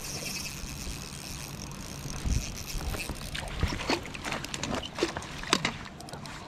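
Water splashing and dripping, a run of irregular sharp splashes starting about two seconds in over a steady rushing background.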